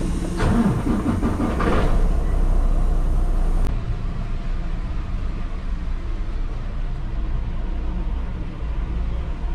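Semi truck driving: a steady low engine and road rumble. A short wavering pitched sound sits over it in the first two seconds.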